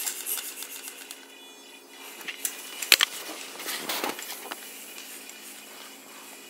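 Small 3-D printed balancing robot with Pololu micro metal gear motors being handled and set down. Irregular clicks and knocks, the sharpest about three seconds in, over a steady thin whine.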